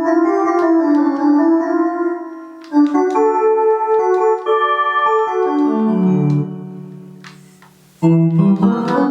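Travel Sax 2 electronic saxophone playing its synth "Pad" voice: a phrase of held, overlapping notes that descends and fades away, then a new phrase begins near the end.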